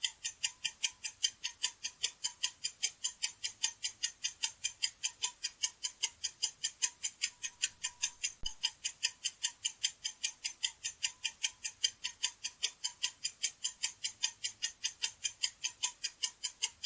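Clock-ticking sound effect: fast, even, sharp ticks that run steadily throughout, as a countdown timer while the listener thinks of the answer.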